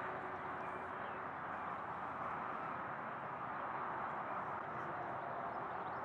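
Steady, faint outdoor background hiss with no distinct events.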